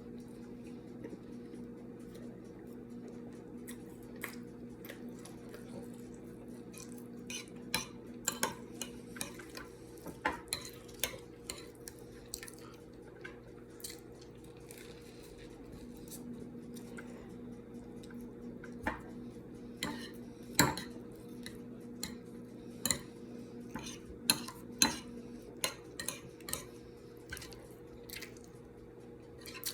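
Cutlery clicking and scraping against a plate during a meal: irregular sharp clinks, in clusters, over a steady low hum.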